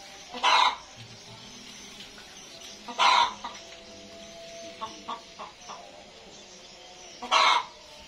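A chicken clucking: three loud short calls a few seconds apart, with a few faint clicks in between.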